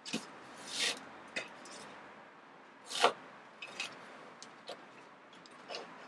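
White thread being pulled through the stitch holes of thick full-grain leather during hand-stitching: a few short rasping swishes, the loudest about three seconds in, with small clicks in between.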